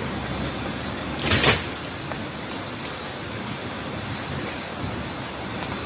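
A brief rustling crash about a second in, which the camper takes for something falling, over a steady high insect drone of the night.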